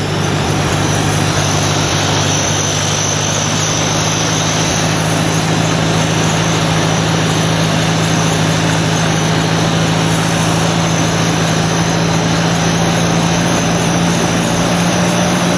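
Ford 641 tractor's four-cylinder engine running steadily on wood gas, pulling along in third gear with an even, unchanging drone.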